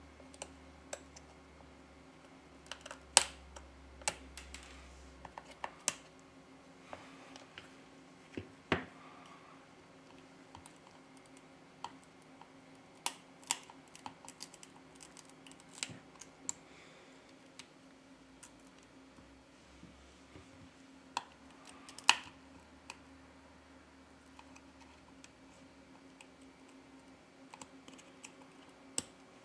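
A surgical scalpel working at an iPhone XS Max's back glass: faint, scattered small clicks and ticks of the blade, with a few sharper ones about 3, 9 and 22 seconds in.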